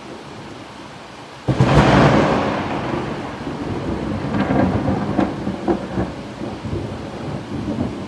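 A thunderclap about a second and a half in: a sudden sharp crack that rolls on as a rumble with scattered crackles, slowly fading, over steady rain.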